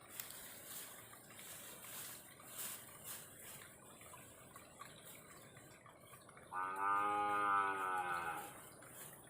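A cow moos once, a single long call of about two seconds starting roughly two-thirds of the way in and tailing off at the end.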